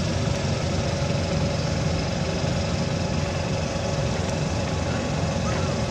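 A steady engine hum, running evenly without change.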